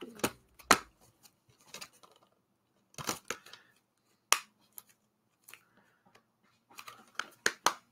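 Plastic DVD cases being handled: a string of sharp clicks and snaps with short scrapes, several quick ones bunched together near the end.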